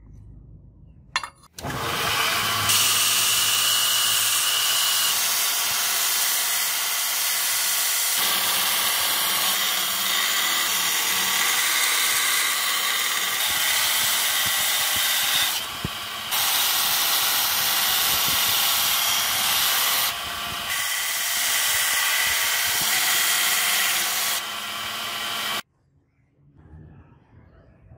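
Belt grinder running, its abrasive belt grinding a steel razor blank cut from a bearing, a loud steady hiss with a whine. The sound shifts abruptly a few times and cuts off suddenly near the end.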